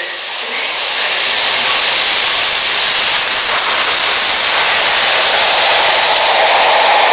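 Peppercorn A1 Pacific steam locomotive 60163 Tornado and its coaches running through at speed close by: a loud, steady rushing noise that swells over the first second.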